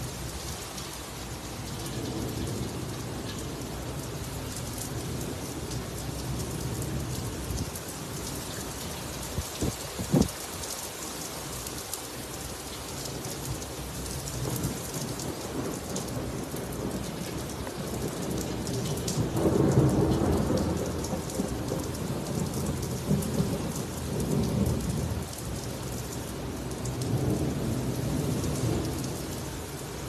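Heavy rain pouring onto a flat rooftop, with thunder rumbling through it several times, the loudest roll about two-thirds of the way in. A couple of sharp knocks sound about ten seconds in.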